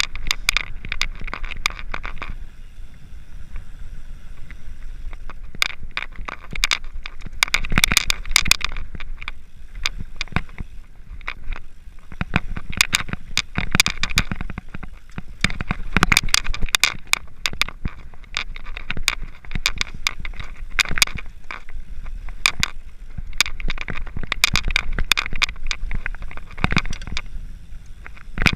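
Mountain bikes riding over a rough gravel track: a dense, irregular crunching and crackling from the tyres and rattling of the bikes, coming in louder surges.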